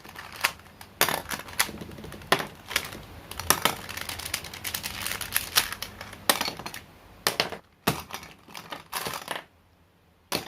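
Plastic Rubik's Cube being turned by hand, its layers clicking and clacking in quick, irregular strokes, with a short pause near the end.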